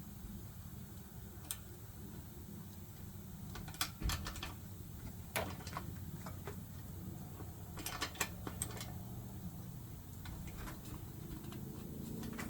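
Scattered light clicks and taps of hand work on an e-bike's front wheel and disc brake caliper, a few in quick succession about two thirds of the way in, over a steady low hum.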